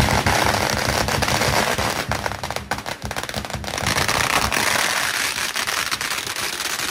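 A string of firecrackers going off in a dense, rapid, continuous crackle of bangs. It eases slightly about a third of the way in, then builds again.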